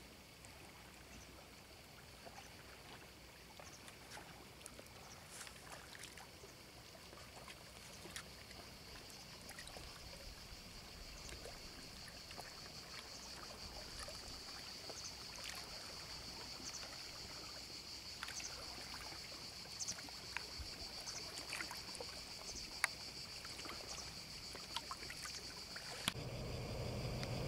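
Steady high buzz of cicadas that grows louder, over small water splashes and lapping ticks.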